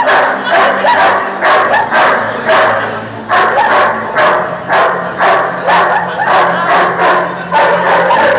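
A dog barking over and over in a steady rhythm, about three barks every two seconds.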